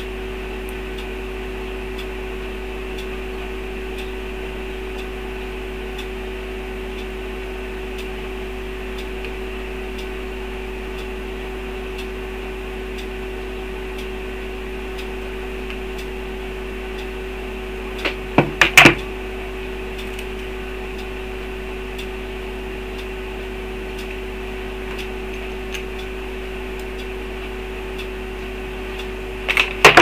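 Steady electrical hum with no speech, broken by a brief cluster of sharp clicks about eighteen seconds in and another click near the end.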